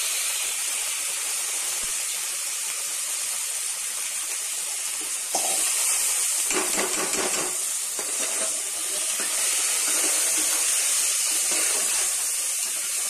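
Soaked rice and moong dal sizzling in hot ghee in a pressure cooker pan, stirred with a metal slotted spoon. A steady hissing sizzle that grows louder about five seconds in, with the spoon scraping through the grains.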